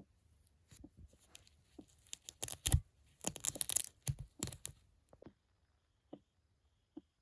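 Hook-and-loop (Velcro) fastener on a plush doll being pulled open in several ripping strokes, loudest in the middle, with light handling taps around them.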